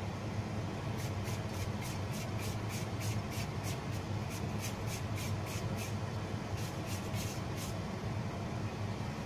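Julienne peeler scraping down a raw carrot in quick repeated strokes, about four a second with a short pause partway through, cutting it into thin strips. A steady low hum sits underneath.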